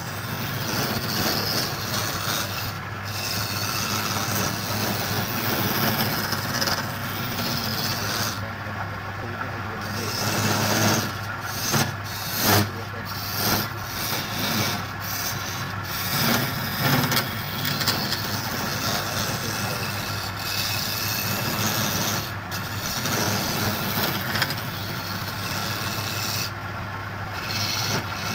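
Wood lathe running with a steady low hum while a flat steel scraper cuts the spinning wooden blank: a continuous rasping scrape of tool on wood, with several louder scrapes between about 11 and 17 seconds in.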